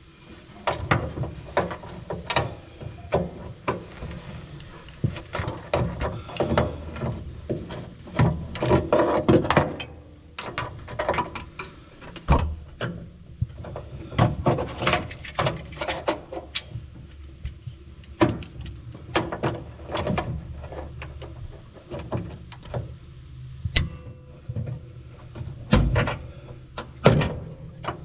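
Irregular clanks, clicks and rattles of metal tools and small parts being handled, picked up and set down.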